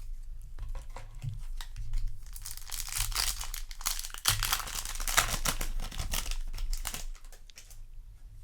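Foil wrapper of a Yu-Gi-Oh! booster pack crinkling and tearing as it is opened, a dense run of crackles that is loudest in the middle.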